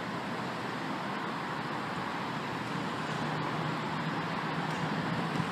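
Steady road traffic noise from cars on a multi-lane road, with a low engine hum that grows slightly louder in the second half as a vehicle draws nearer.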